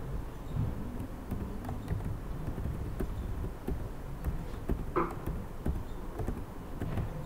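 Low steady hum of room or recording noise, with a few faint clicks of a computer keyboard and mouse as code is copied and pasted.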